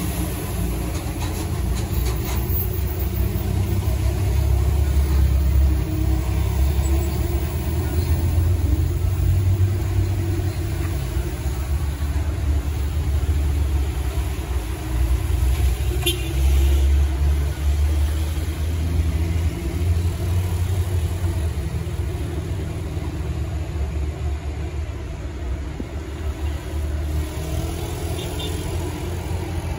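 Vehicle engines from traffic climbing a steep hairpin, a loaded truck among them, with a heavy low rumble that swells twice and fades as vehicles pass.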